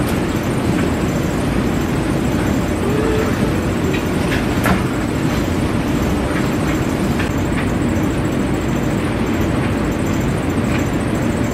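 Steady rumbling hum of laundry-room washers and dryers running, with a few sharp clicks and knocks as laundry is loaded into a top-loading washer.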